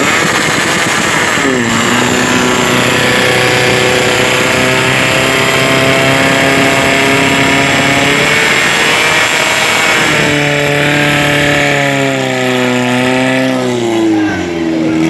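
Portable fire pump's engine running at high revs while pumping water into the hoses. Its pitch drops about a second and a half in, steps up again around eight seconds, climbs and wavers after ten seconds as the throttle is worked, and sinks near the end.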